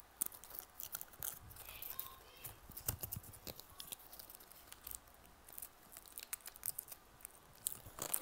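Irregular light clicks and taps of a small plastic dog light being handled and fitted by hand.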